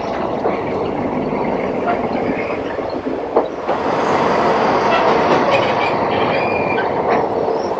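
Old passenger train running on the track, heard from inside a carriage with open windows: a steady rattle and rumble of the wheels on the rails, with a faint high wheel squeal in the second half.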